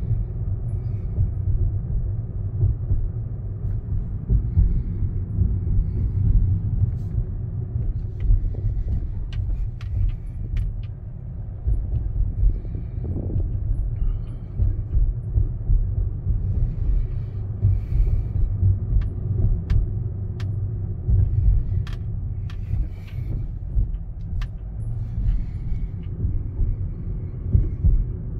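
Steady low rumble of road and wind noise inside a moving car's cabin, with a few faint clicks through the middle.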